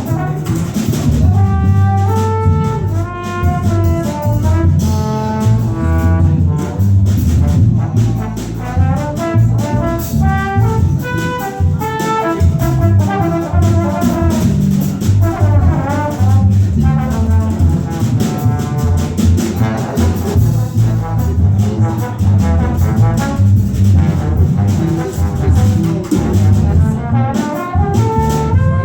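Live jazz combo playing: a horn carries a busy, moving melody line over bass and drums, without a break.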